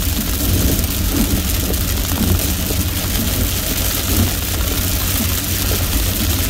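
Steady driving noise heard inside a moving car's cabin in heavy rain: tyres on a wet road and rain on the windshield, over a low engine and road rumble.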